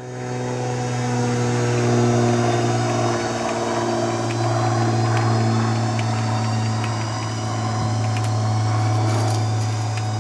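Drive motor of a bi-fold hangar door running as the door swings down shut, a steady hum with a clear pitch.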